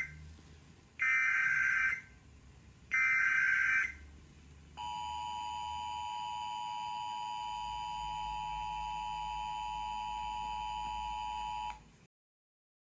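Emergency Alert System SAME header: the tail of one data burst, then two more electronic data bursts about a second each with short gaps between them. Then the EAS two-tone attention signal holds steady for about seven seconds and cuts off suddenly, the standard lead-in to an alert message.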